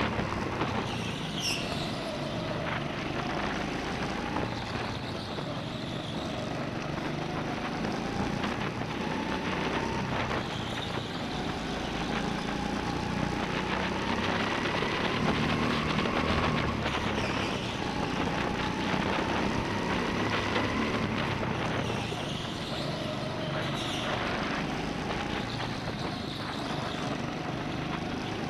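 Go-kart engines running, heard from onboard a kart, their pitch slowly rising and falling as the karts speed up and slow through the corners.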